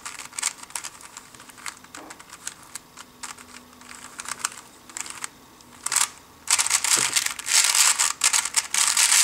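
A 3x3 Rubik's speedcube being turned with finger tricks. Sparse plastic clicks of single turns give way, about six and a half seconds in, to a rapid run of clacking turns as a G perm algorithm is executed at speed.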